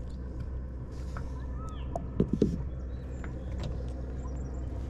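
Boat engine running with a steady low hum, with a few quick knocks about two seconds in.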